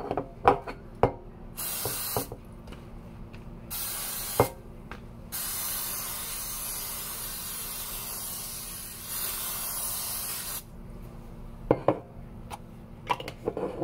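Aerosol can of Pam cooking spray hissing in bursts: two short sprays, then one long spray of about five seconds. Light knocks and clicks of handling the can and potatoes come before and after.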